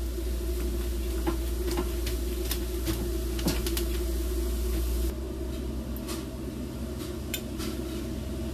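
Knife cutting slices of a baked yufka-pastry borek in its baking dish: scattered light crackles and clicks of the blade through the crisp crust and against the dish, over a steady background hum.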